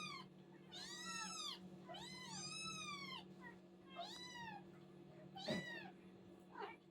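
Hungry kittens meowing: a string of about six high, arching meows, two of them overlapping about two seconds in, over a steady low hum.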